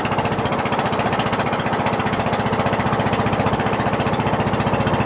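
Small boat engine running steadily, a rapid, even chugging over a steady hiss.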